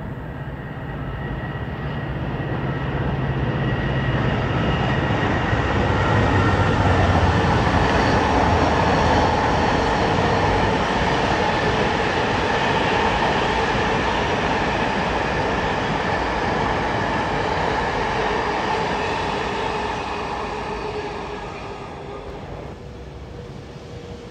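Container freight train passing close by, its locomotive's low engine hum at first, then the rumble of the wagons over the rails with a steady whine above it. The sound swells to its loudest in the middle and falls away about 21 seconds in.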